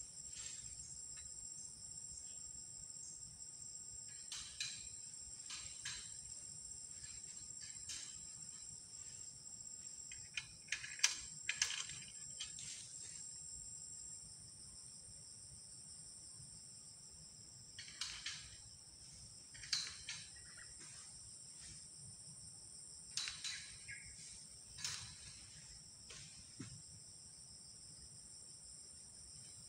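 Insects droning steadily at a high pitch, broken every few seconds by short, sharper sounds.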